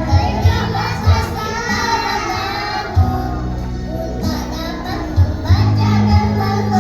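Kindergarten children's choir singing together over accompanying music with a steady bass.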